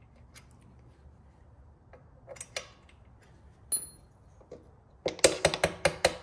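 Light, quick hammer taps driving a motorcycle footpeg's pivot pin into its bracket: a run of sharp taps, about six a second, starting about a second before the end. Before them come a few faint clicks and one metallic tick that rings briefly.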